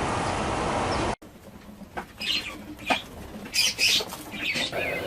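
Pheasants calling: several short calls in quick succession, the loudest a pair of sharp calls a little before the end. A steady outdoor noise at the start cuts off suddenly about a second in, and a different, quieter ambience with small chirps comes in near the end.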